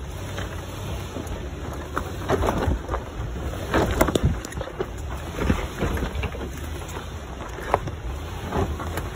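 Toyota Sequoia's tyres rolling over a rocky dirt trail, with irregular crunches and pops of gravel and stones under the tread, over a steady low rumble of the vehicle and wind on the microphone.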